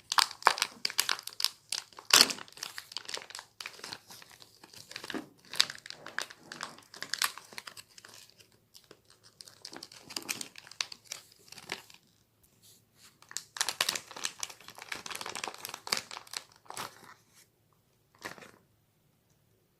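Plastic wrapping of kyoho grape jellies crinkling and rustling as it is handled, in long bursts of crackles with short pauses. A last brief crinkle comes about 18 seconds in.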